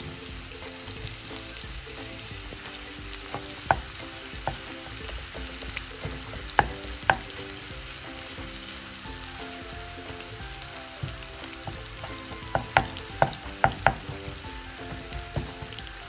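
Nduja and sliced red onion frying in olive oil, sizzling steadily. A wooden spoon stirring and breaking up the nduja knocks sharply against the pan a few times near the middle, then in a quicker cluster near the end.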